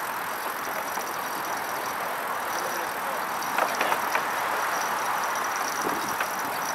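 Steady hiss of riding a bicycle amid passing road traffic, with a few short sounds about halfway through.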